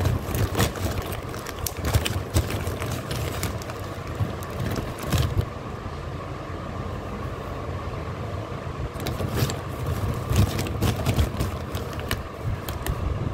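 Lumps of edible clay clicking and knocking against each other as they are picked up and turned over by hand, in clusters, over a steady low rumble.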